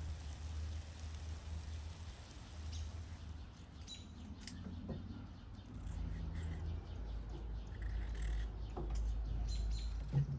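Small birds chirping in the background over a low steady rumble. Near the end, a knife cuts through a cucumber onto a wooden cutting board.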